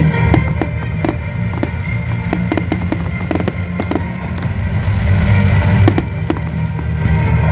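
Fireworks display: aerial shells and fountains going off in a rapid, irregular run of sharp bangs and crackles, thickest in the middle, over loud accompanying music with a heavy bass.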